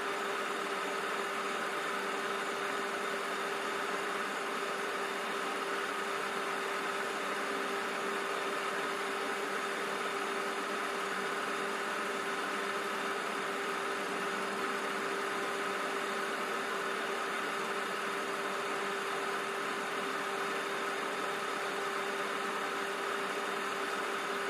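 A steady mechanical hum with one constant low tone and a fainter higher tone over a hiss, unchanging throughout.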